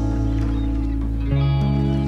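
Background music: held chords, with a change of chord and bass note a little over a second in.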